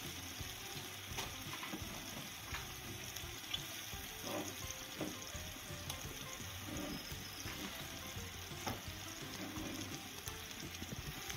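Chicken pieces frying in a pot of spiced onion-tomato masala: a steady sizzle, with the scrape and knock of a wooden spatula stirring now and then.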